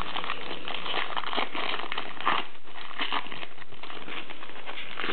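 Basketball trading cards being flipped through and slid against one another in the hands, an irregular papery rustling with light clicks of card stock.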